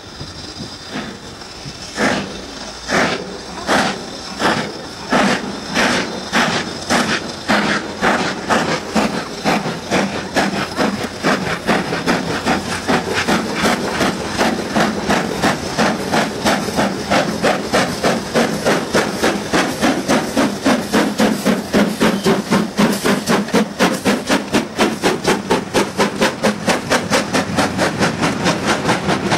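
BR Standard Class 4 2-6-4T steam tank locomotive 80079 starting away with a train: steam hiss at first, then about two seconds in its exhaust beats begin, slow at about one a second, and quicken steadily to several a second as it gathers speed.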